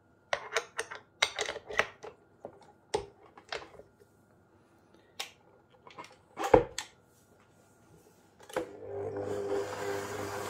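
Clicks and knocks as a flat beater is fitted onto a stand mixer's shaft and the mixer head is lowered, the loudest knock about two-thirds of the way in. Then, about 8.5 seconds in, the stand mixer's motor starts and runs steadily, beating butter and shortening into flour to a crumb.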